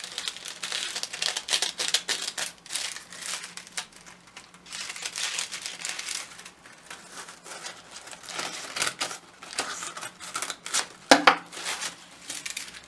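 Scissors snipping through folded crepe paper in a run of irregular cuts, with the paper rustling. A little after eleven seconds a sharp, louder knock as the scissors are set down on the table.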